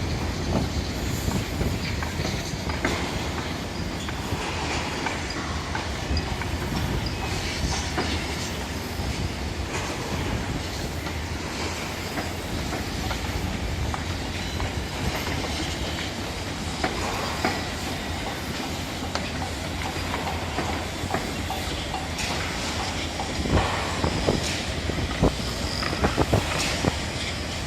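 Construction site noise: a steady mechanical rumble with scattered metallic clanks and knocks, which come thicker and louder about twenty-three seconds in.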